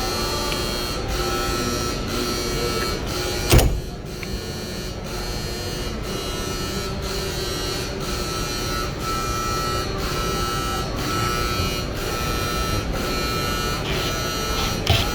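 Steady motor hum with sustained tones and a faint regular pulse about twice a second, and a single sharp knock about three and a half seconds in.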